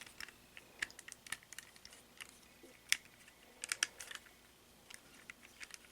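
Light, irregular clicks and taps of hard plastic toy-figure parts being handled and shifted, with a few sharper clicks around the middle.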